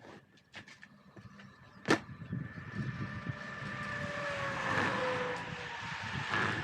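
A sharp click about two seconds in, then a vehicle passing by: a rush of noise that builds, peaks and fades, with tones that drop in pitch as it goes past.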